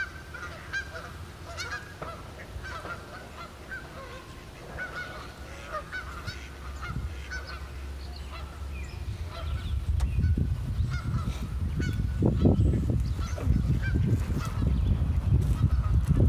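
A flock of birds calling: many short, repeated calls throughout, with a low rumble growing louder from about halfway through.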